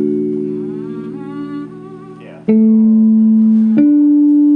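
A held chord on a musical instrument fading away. About halfway in, three single notes are played one after another, each a step higher than the last and each held at a steady level.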